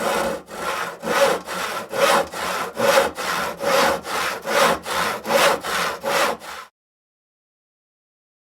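Hand saw cutting through wood in steady back-and-forth strokes, about two to three a second, alternating stronger and weaker. The strokes cut off suddenly about two-thirds of the way through.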